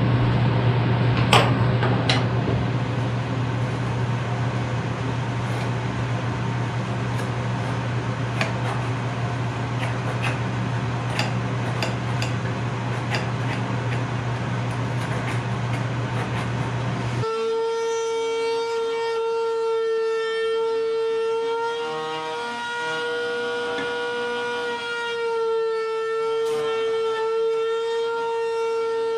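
Steady machine noise with a low hum and a few clicks. After about seventeen seconds it gives way to a table-mounted router running with a steady high whine. The whine sags slightly in pitch for a few seconds as the wooden toy car body is fed against the bit.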